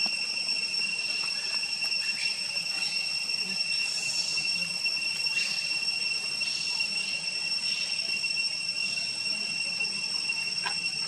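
Steady high-pitched insect drone, with faint short falling chirps every second or so over it.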